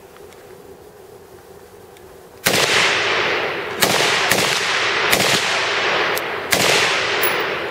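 RPK light machine gun in 7.62×39 mm firing single shots: after a quiet start, about six shots come under a second apart from about two and a half seconds in, each trailing off in a long echo.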